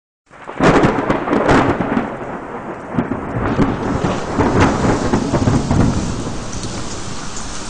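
Heavy rain with thunder, rising in quickly at the start, with its loudest clap about half a second in and further claps over the next few seconds.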